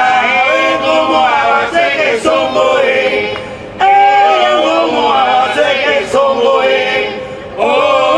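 Male voices singing a Yoruba chant without accompaniment, in phrases of about four seconds each.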